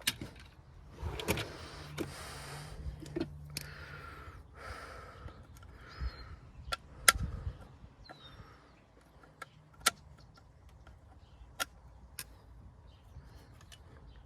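Truck door-handle parts being squeezed and worked by hand: a scattered series of sharp clicks and snaps, with scraping and rustling in the first few seconds.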